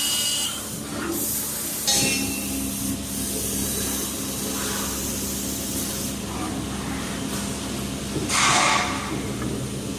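Workshop machinery running steadily with a low hum, as in a CNC machining shop for aluminium window and door profiles. There is a short louder hiss about eight and a half seconds in.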